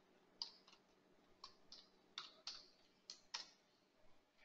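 About eight faint, sharp computer-mouse clicks, coming in loose pairs about a quarter second apart, over a faint steady low hum.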